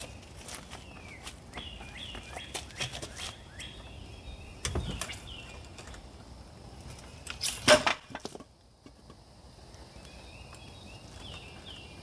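Scattered knocks and clunks from a floor jack and wooden blocking under a jacked-up boat. The loudest is a sharp clunk about two thirds of the way through. Birds chirp repeatedly in the background.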